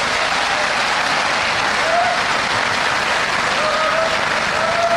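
Large seated audience applauding steadily, with a few voices calling out faintly over the clapping from about halfway through.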